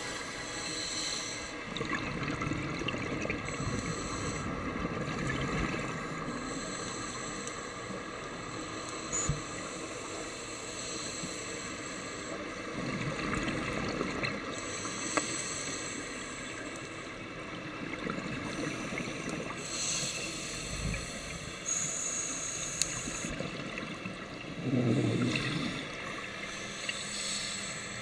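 Underwater sound of a scuba diver breathing through a regulator: a hissing inhale every few seconds and a low bubbling exhale, over a steady water hiss.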